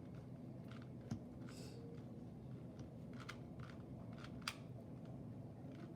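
A 2x2 Rubik's cube being turned by hand: irregular plastic clicks and clacks as its layers snap round, the sharpest about a second in and again about four and a half seconds in.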